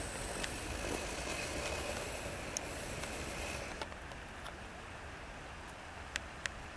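Steady wind rumble on the microphone over a river running with broken ice, with a hiss of moving water and a few faint sharp clicks. The noise eases about four seconds in.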